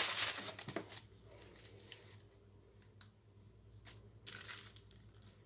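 Faint handling sounds as a knife cuts a slab of soft, freshly set homemade soap in a plastic-lined box: a few soft clicks and a short scrape, over a low steady hum.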